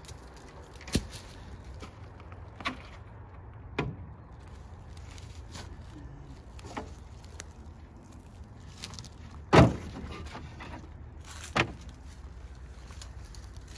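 A handful of separate sharp metal knocks and clanks, the loudest about ten seconds in, from the rusted tailgate and loose window-frame parts of a 1957 Plymouth Sport Suburban station wagon being handled and worked by hand.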